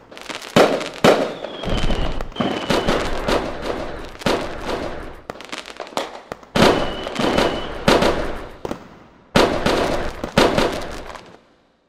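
Fireworks going off: a rapid string of bangs and crackling, with two short high whistles and strong bursts near the start, about halfway through and near the end. It stops shortly before the end.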